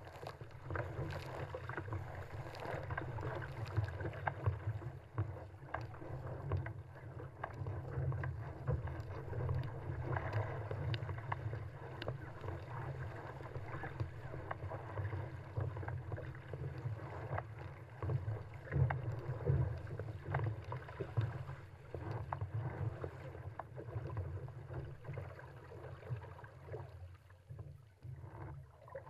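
Surfski running downwind through choppy sea: water rushing and splashing against the hull and paddle blades in uneven surges, with wind buffeting the deck-mounted camera.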